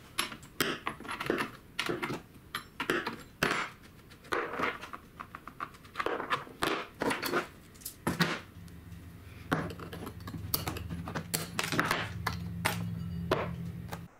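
Clicks and clunks of a scrench, bar nuts and a chainsaw's bar and chain being handled and set down on a wooden workbench as the bar and chain are taken off the saw. A low steady hum comes in about eight and a half seconds in.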